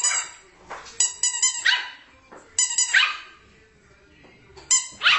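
A handheld squeaky toy squeezed in quick runs of two or three squeaks, each run answered straight away by a puppy's single sharp bark. This happens three times, about once every two seconds.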